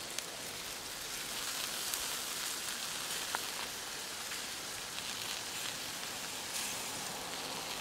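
Barbecue-sauced chicken thighs sizzling on a charcoal grill grate, a steady hiss with a couple of faint pops.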